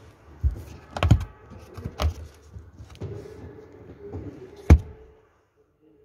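Four sharp clicks and dull knocks, the loudest late on, with light rustling between them: handling noise inside a car cabin.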